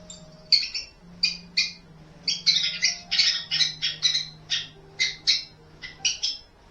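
Small birds chirping and squawking in short, harsh calls, about two a second and some overlapping, played back from a bird video, with a faint steady hum underneath.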